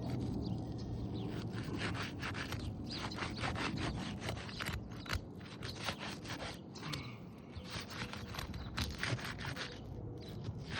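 Repeated short, irregular scraping strokes of a tool working under roof shingles to break their seal so a damaged shingle can be removed.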